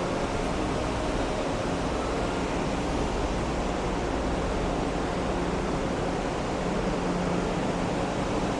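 Train-station platform ambience: a steady rushing noise with a faint low hum.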